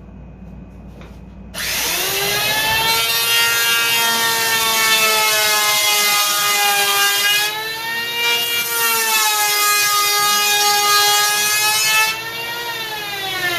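Modified electric hand planer starting about a second and a half in and running with a loud whine as it cuts the foam deck of a surfboard blank. Its pitch sags and recovers under load midway, then falls near the end as the motor winds down.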